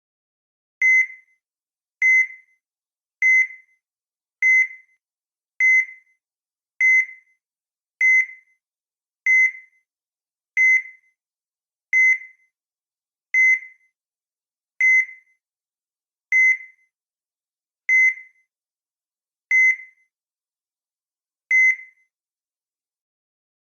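Heart monitor beeping: a short, high electronic beep with each heartbeat. The beeps come a little over a second apart at first, then gradually spread out to about two seconds apart, with a longer gap before the last one, as the pulse slows.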